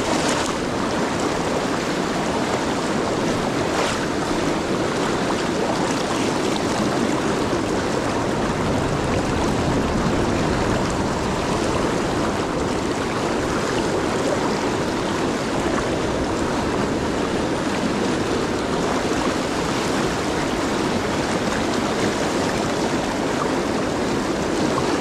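Fast river current rushing over rocks close by: a steady, even rush of water.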